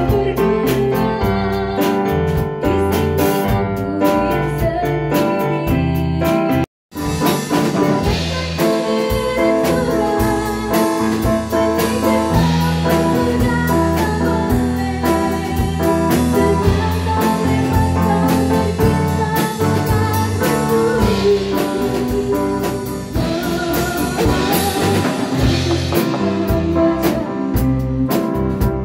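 A woman singing into a handheld microphone with a live band behind her, drum kit audible. The sound cuts out completely for a split second about seven seconds in, then the song carries on.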